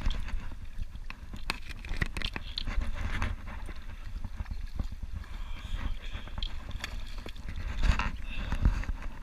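Shallow river water sloshing and splashing close by, with scattered knocks and clicks and a steady low rumble throughout.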